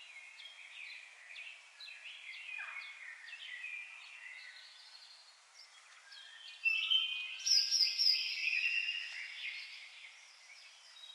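Birds chirping and singing, many short overlapping calls and whistles over a faint hiss, with a louder stretch of song starting suddenly about two-thirds of the way through.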